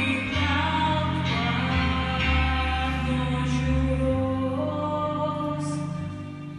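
Music: a song with singing over sustained accompaniment and a steady bass line.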